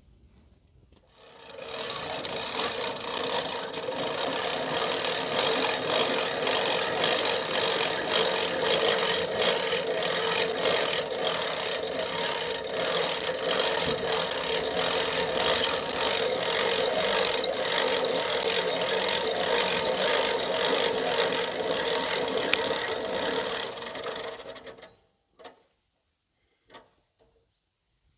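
Woodland Mills HM126 portable bandsaw mill running under load as its blade cuts through a log, a steady rasping saw noise over the engine's hum. It starts about a second in and cuts off abruptly near the end, followed by a couple of faint clicks.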